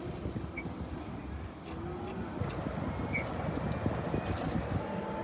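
Golf cart driving along: a steady low rumble of tyres and motion with scattered small rattles and knocks.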